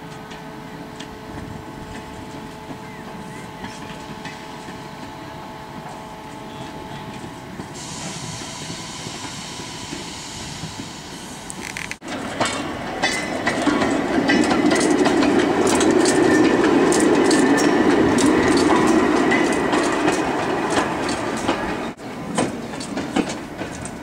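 Small replica early steam locomotive hauling an open passenger wagon along yard track. It is first heard at a distance with a few steady tones and, from about a third of the way in, a high hiss. About halfway through it passes close by with a loud rumble and a rapid clatter of wheels on the rails, which drops away shortly before the end.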